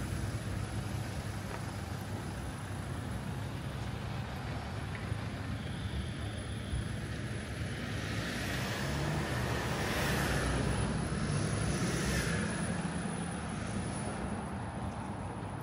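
Road traffic: a steady low engine rumble, with a vehicle passing by that swells and fades about eight to thirteen seconds in.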